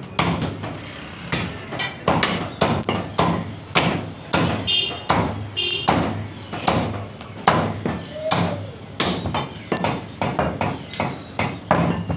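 Heavy meat cleaver chopping through a strip of mutton into a round wooden butcher's block, blow after blow at roughly two a second.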